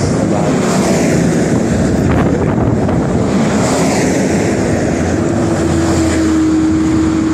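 Coach buses driving past close by: engine and tyre noise, with wind buffeting the microphone. About five seconds in, a steady low engine hum and tone join as a bus runs alongside.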